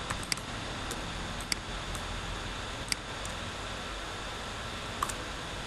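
Computer mouse clicking a few separate times, sharp short clicks, over a steady hiss of microphone background noise.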